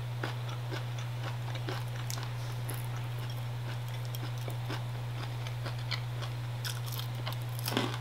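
Close-miked chewing: soft, scattered mouth clicks and smacks over a steady low hum, with a louder noise just before the end.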